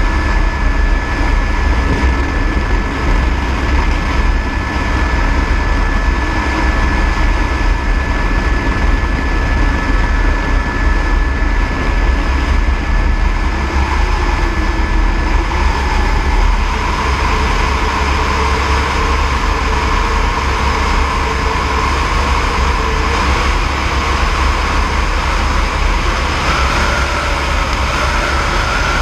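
Eurocopter AS350 B3e helicopter in flight: its turbine and rotor run steadily with a heavy low rumble. A thin high whine sits over it for the first half and then fades, and some of the tones rise a little in pitch near the end.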